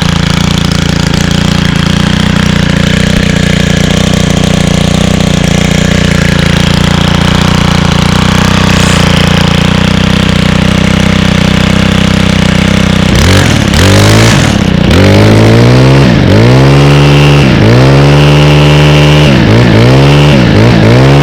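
Stihl FS91R string trimmer's 28cc 4-MIX engine idling steadily, then revved up and down repeatedly from about two-thirds in.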